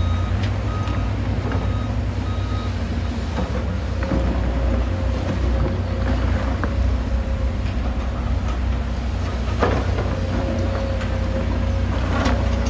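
Komatsu crawler excavator's diesel engine running steadily under work as the machine swings and digs. A warning beeper sounds about four times in the first few seconds, and a couple of short knocks come near the end.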